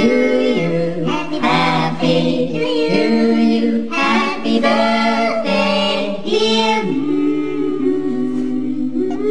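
Music of several voices singing held notes in harmony, without instruments.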